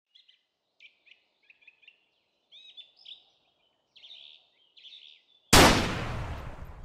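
Birds chirping in short, scattered calls, then about five and a half seconds in a single sudden loud bang that dies away over a second or so.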